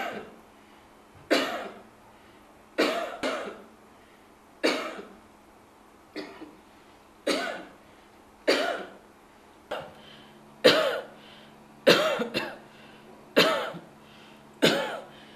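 A person coughing deliberately, one cough after another, about a dozen coughs a second or so apart, a few of them double coughs.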